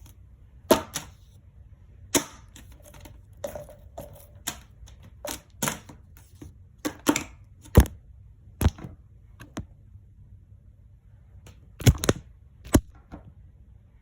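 Fidget toys being clicked and snapped by hand: irregular sharp clicks, some in quick pairs or short runs, with gaps of a second or so between them.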